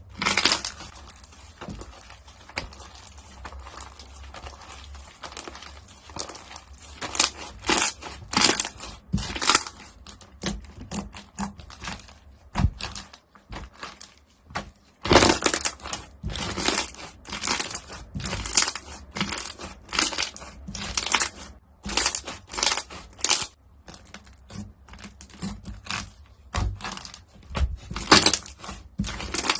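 Crunchy slime being squeezed and pressed by hand, giving irregular crackling crunches about one or two a second, with a softer stretch of quieter crackle over the first few seconds.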